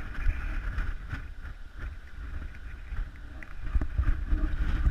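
Wind buffeting the microphone, a gusty low rumble that rises and falls, over a steady outdoor hiss.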